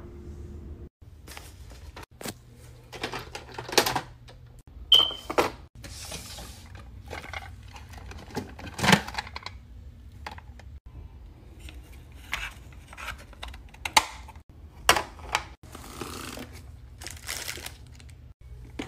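Plastic packaging being handled: irregular crinkles, rustles and sharp taps as a boxed set of false eyelashes and a holographic plastic mailer bag are handled, over a low steady hum.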